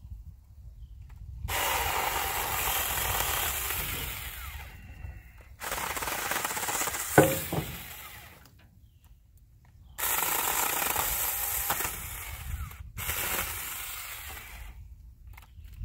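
A Saker 4-inch cordless mini chainsaw cutting small branches: its electric motor runs in three spells of a few seconds each and stops in between, with one sharp knock about seven seconds in.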